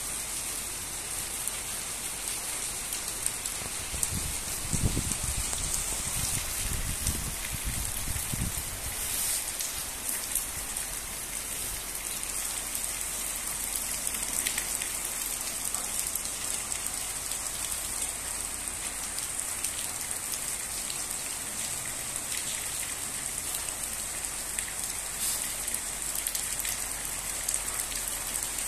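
Torrential rain falling steadily: a dense hiss of drops pattering on surfaces. Some low rumbling rises under it about five to eight seconds in.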